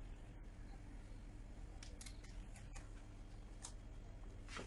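Faint rustling and crinkling of baking paper with light handling noise as coconut-coated cookie dough balls are pressed onto a paper-lined baking tray: a few short scrapes about two to three seconds in and another near the end, over a low steady hum.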